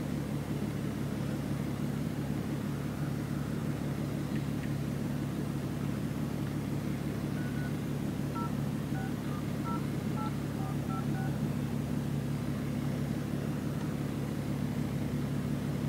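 A car idling with a steady low hum inside the cabin. About halfway through comes a quick run of about ten phone keypad tones, each a short two-tone beep, as a number is dialed on a smartphone.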